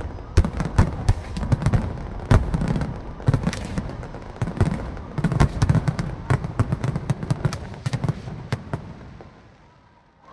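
Aerial fireworks going off in rapid succession: a dense volley of sharp bangs that thins out and dies away near the end.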